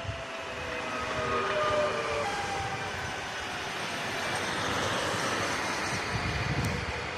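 SNCF double-deck electric train rolling past: a whine from its electric drive falls slowly in pitch over the first couple of seconds, over the steady rumble of wheels on rail.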